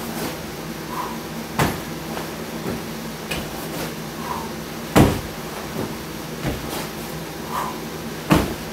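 Heavy thuds from a handled workout sandbag being swung down and lifted in repeated reps, with three loud knocks about three and a half seconds apart and smaller bumps between them, over a steady background hum.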